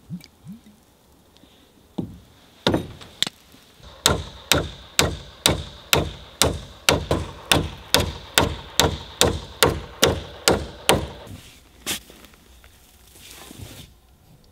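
A hand tool striking wood over and over in a fast, even rhythm of about two strikes a second, with a faint ringing note under the blows. A few scattered knocks come before the run, and one more comes after it.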